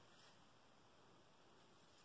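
Near silence: faint steady room tone and hiss.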